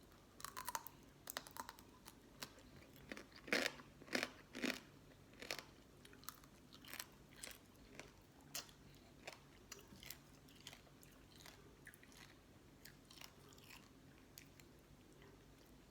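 Close-up chewing and crunching of pickled sea crab in a green mango salad, the crab shell and legs cracking between the teeth. A cluster of sharp crunches comes in the first five seconds, then softer, sparser chewing.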